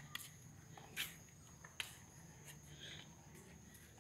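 Near silence with a few faint knocks and scuffs: footsteps on a concrete sidewalk as the phone is carried along. A faint steady high whine runs behind them.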